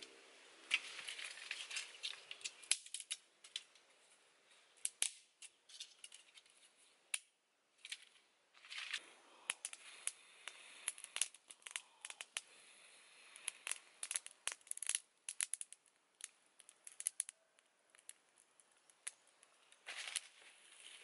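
Dry twigs and leaf litter crackling and snapping as they are handled and broken over a small smoking kindling fire, in many sharp, irregular clicks.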